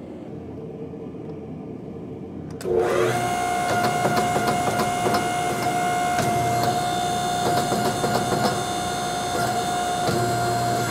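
Coal Iron Works 25-ton hydraulic forging press's pump, humming low and then, about three seconds in, jumping to a louder steady whine with light clicks and knocks as the press works under load on the hot axe head.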